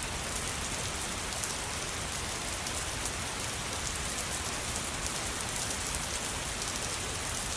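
Steady light rain falling, an even hiss with many small drop ticks.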